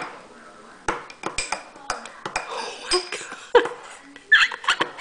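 Metal spoon stirring a thick mix of marshmallow root powder and hot water in a glass cup, clinking irregularly against the glass.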